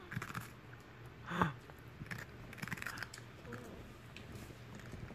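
A poodle biting and chewing a raw cucumber: scattered short crunchy, wet bites, the loudest about a second and a half in.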